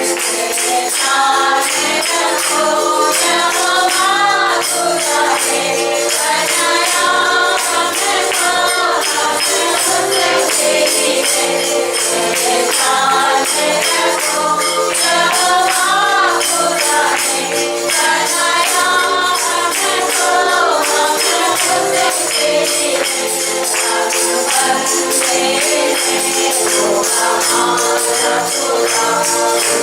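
Hindi worship song: a group singing a melody over steady tambourine shaking.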